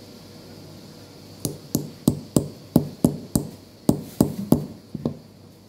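About a dozen sharp metal taps, roughly three a second, starting about a second and a half in: pliers striking the end of an L-shaped Allen key held on the positive terminal of an 18650 lithium-ion cell, knocking in its CID safety button to reset it.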